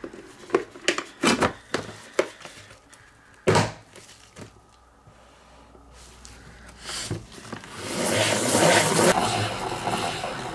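Plastic clicks and knocks as the lid goes onto a salad spinner, with one loud knock about three and a half seconds in. From about seven seconds the spinner is turned by hand: a steady plastic whirring and rattling that builds, spinning the wet paint outward across the paper inside.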